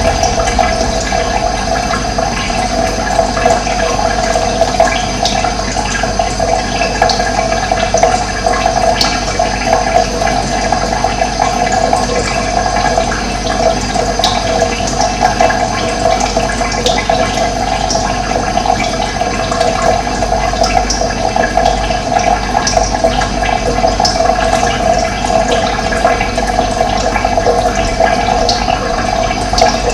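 Steady rush of running water, with brief high bird chirps now and then.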